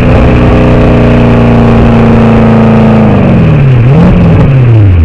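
Porsche 928 S4's V8 exhaust, loud and close at the tailpipe while driving. The engine note holds steady, then the revs fall off about three seconds in, rise briefly near four seconds and fall away again.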